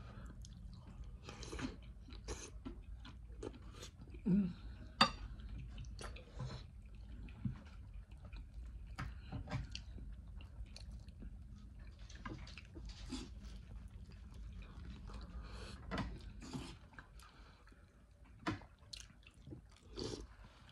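Close-up eating sounds: wet chewing and mouth smacks of curry and bread, with irregular clicks of a metal spoon against a ceramic plate, the sharpest about five seconds in. A low steady hum runs underneath.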